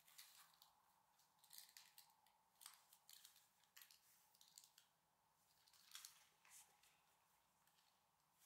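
Faint rustling and scratching of a mesh arm sling's fabric and nylon straps as they are folded and handled, in short scattered bursts.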